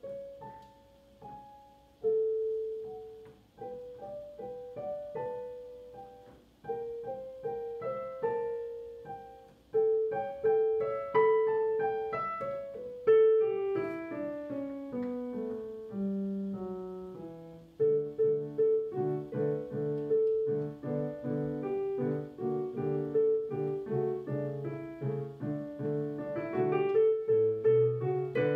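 Solo piano played on a digital piano, a lively dance piece in separate struck notes. About twelve seconds in a long run falls down the keyboard, and from about eighteen seconds it turns louder, with regular low chords pulsing under the tune.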